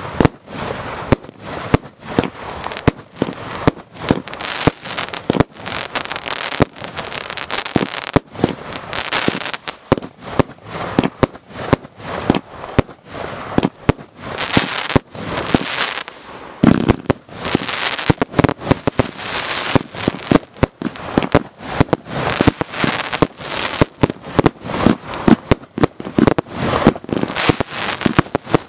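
Fireworks going off at close range: a steady barrage of sharp bangs, often several a second, from aerial shells bursting, with crackling between the bangs.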